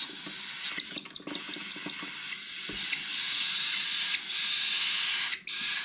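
Baby cockatiel begging while being hand-fed: a steady raspy hiss, with a quick run of about seven short high squeaks about a second in.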